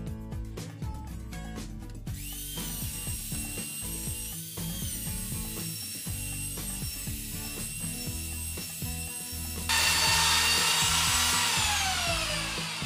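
A handheld power tool working on a wooden drawer frame. It begins with a couple of seconds of rapid scratchy clicking, then runs with a steady motor whine. About ten seconds in it gets much louder, then falls in pitch as the motor winds down.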